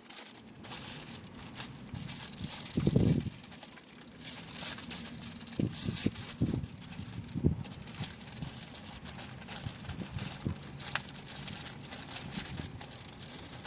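Crinkling and rustling of takeout food packaging, in irregular crackles, with a few short soft thuds.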